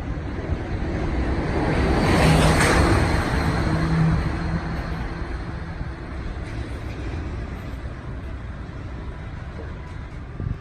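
A vehicle passing close by: the sound builds, peaks about two and a half seconds in with a steady hum, and fades by about five seconds in, leaving a steady outdoor background rumble.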